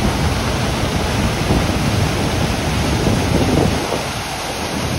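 Waterfall on a river pouring and churning: a loud, steady rush of whitewater, dipping slightly near the end.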